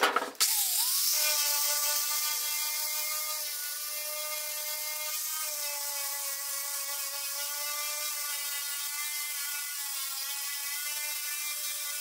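Electric angle grinder with a wire brush spinning up, then running steadily as it scrubs paint and surface rust off a car body panel. It makes a steady whine that shifts slightly in pitch a few times.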